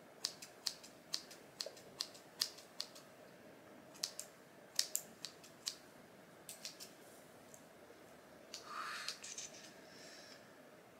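Hair scissors snipping through the bangs of a human-hair wig, in crisp separate cuts, roughly two a second, in several runs over the first seven seconds. A short rustle follows near the end.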